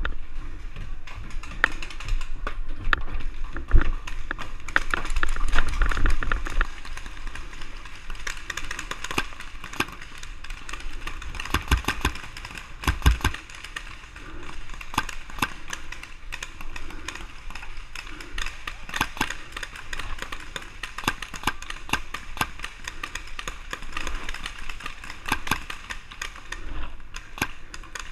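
Paintball markers firing: many sharp pops at irregular intervals, some in quick strings, with heavier thumps a few seconds in and again near the middle.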